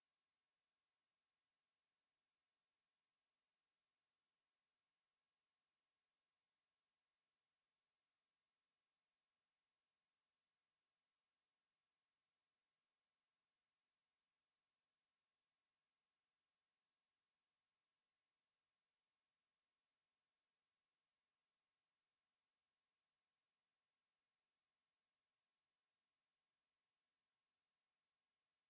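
A steady, high-pitched pure sine-wave test tone at 10693 Hz, held at one unchanging pitch and level, used to test a speaker or to shake water and dust out of it.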